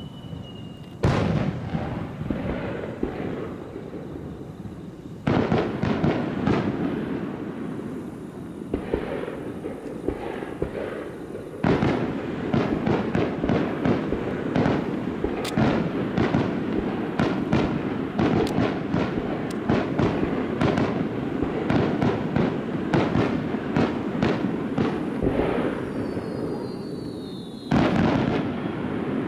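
Fireworks display: four loud aerial shell bursts, each followed by a long run of dense crackling and popping. A faint falling whistle comes just before the last burst.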